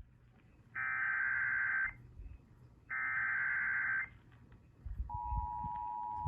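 Emergency Alert System SAME header: two harsh digital data bursts of about a second each, a second apart. At about five seconds the steady two-tone EAS attention signal begins, announcing an emergency alert.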